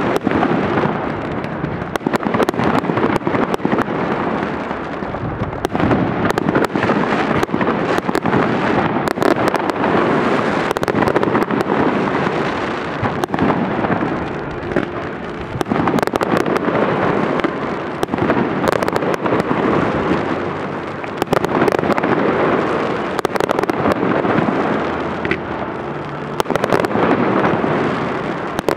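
Large aerial fireworks display: a dense, continuous barrage of bangs and crackling from many shells bursting, swelling and easing in waves every few seconds.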